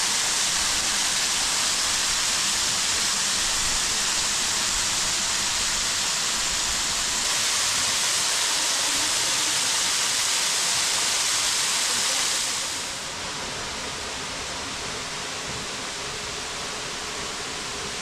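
Kurşunlu Waterfall pouring into its pool: a steady, even rush of falling and splashing water. About two-thirds of the way through it drops to a softer, duller rush.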